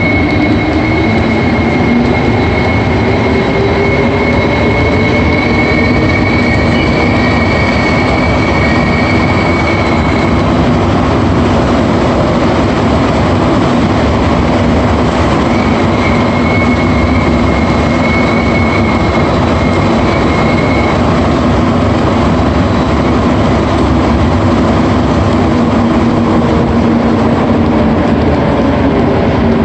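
AZUR metro train running and picking up speed, heard from inside the car: a steady rumble with a motor hum that rises in pitch. Over it sounds a thin, steady high-pitched whistle for about the first ten seconds, which comes back briefly midway. This is the weird whistling this train set makes as it leaves each station.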